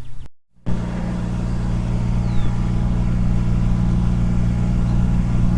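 A vehicle engine running steadily at an even speed after a brief break, with no change in speed.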